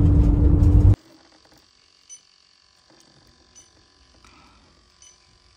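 Road noise inside a moving van for about the first second, cutting off abruptly. Then a quiet stretch with faint, evenly spaced ticks about every second and a half over a faint steady high tone, from an electronic refrigerant leak detector ticking as it is worked around an evaporator coil.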